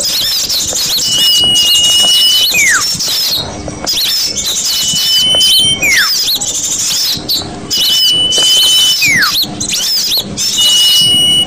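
Looped bird-lure recording of small birds calling: a long, steady high whistle followed by a steeply falling whistle, repeating about every three seconds over a constant chatter of high chirps.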